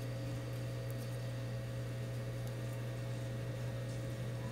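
Hot air rework station's blower running, a steady low hum with a faint hiss and no change.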